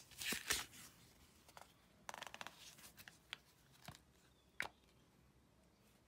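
A phone being fitted into a plastic phone case: a scraping rustle, then a short rattle, then three sharp clicks as the case is pressed onto the phone's edges.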